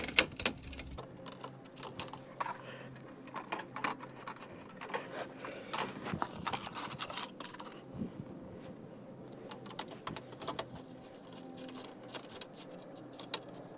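Small metallic clicks and scrapes of a hand Allen key turning license plate bolts into a Perrin relocation bracket, coming as many quick, irregular ticks.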